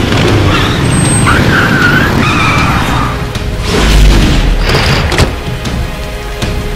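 Car tyres screeching as the car skids to a stop, with a deep boom about four seconds in. Film background music takes over from about five seconds.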